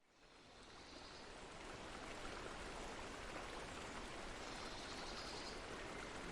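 Water in a small river or stream flowing and babbling, fading in over the first second or so and then running steadily.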